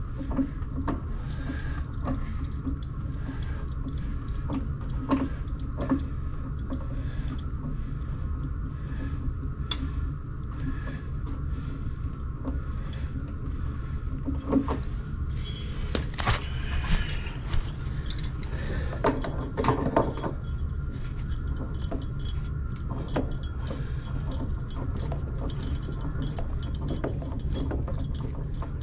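Scattered metallic clinks and knocks of tools and fittings being handled during plumbing work on a water heater, with a cluster of louder knocks a little past halfway. A steady low hum runs underneath.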